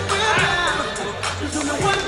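Background music with a singing voice over a deep, held bass line.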